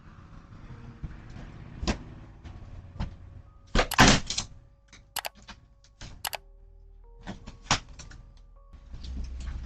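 Thrown rocks striking a house: a string of sharp knocks and thuds, the loudest a rapid cluster about four seconds in.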